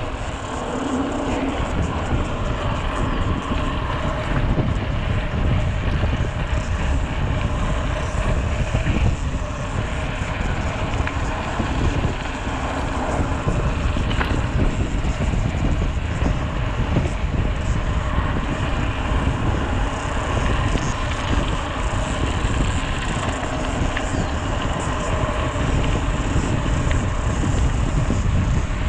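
Wind rushing and buffeting over the microphone of a handlebar-mounted camera on a mountain bike moving at speed down a paved road, a steady, loud rumble.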